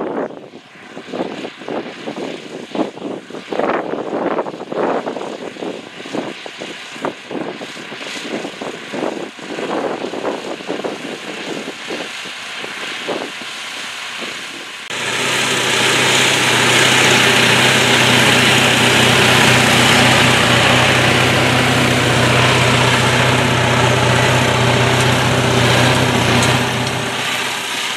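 Kirovets K-700 tractor's YaMZ-238 V8 diesel working under load while pulling a cultivator. For the first half the engine is faint under gusty wind buffeting the microphone. About halfway through it comes in loud and steady with a deep, even drone, easing off just before the end.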